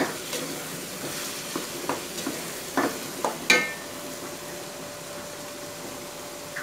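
A spatula stirring and scraping minced meat and peas frying in a non-stick pot, with several short scrapes over the first three and a half seconds, then the mix sizzling steadily.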